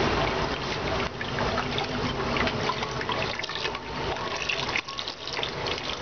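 Water running from a garden hose into a large ceramic pot, a steady splashing pour that dips briefly a little before the end.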